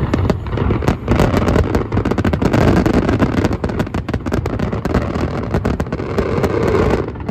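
Fireworks going off in rapid succession: a dense run of crackles and bangs over a continuous low rumble, which cuts off suddenly near the end.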